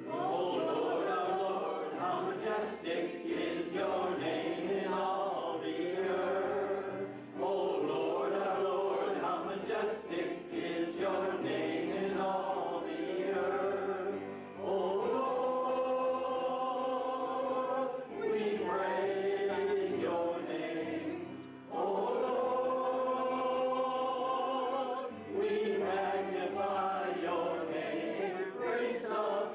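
A group of voices singing together in long held phrases, with short breaks between phrases.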